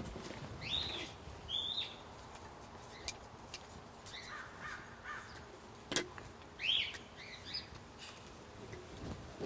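Birds calling: short arched calls about a second in and again near seven seconds, with a few softer notes between. Under them, occasional sharp clicks and knocks as the pond light fixture and its cord are handled among the rocks.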